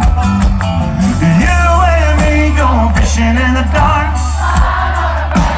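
Rock song with a singing voice over bass and drums.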